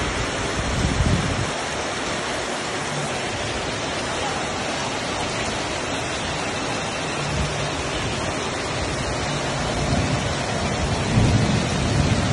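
Heavy rain pouring steadily in a dense hiss, with low rumbles about a second in and again near the end.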